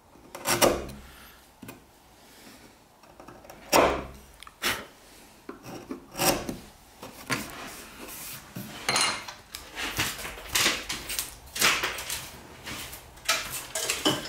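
Hand chisel paring a notch in hardwood: a run of short, irregular scraping cuts and rubs, a few sharp louder strokes early on giving way to quicker, closer-spaced strokes in the second half.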